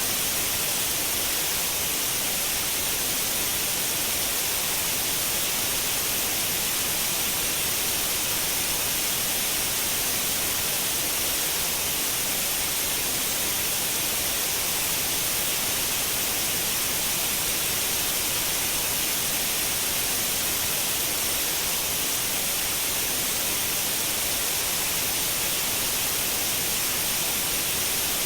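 Synthetic white noise: a steady, even hiss, brightest in the high frequencies, that never changes.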